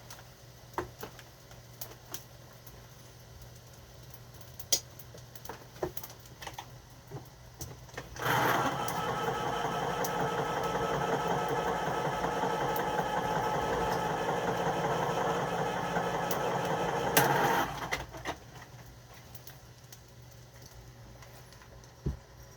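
Small electric motor of a kitchen appliance switched on, running steadily for about nine seconds from partway in, then switched off.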